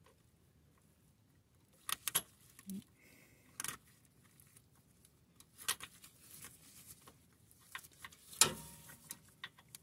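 Scattered faint metallic clicks and clinks as a hose clamp is worked off the line of a tractor's diesel fuel filter. There are a handful of sharp clicks, the loudest about eight and a half seconds in.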